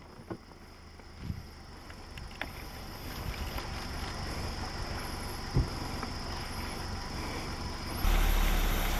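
Steady low rumble of an idling vehicle engine with a faint high hiss, a few light knocks and one sharper thump about five and a half seconds in. About eight seconds in the noise suddenly gets louder.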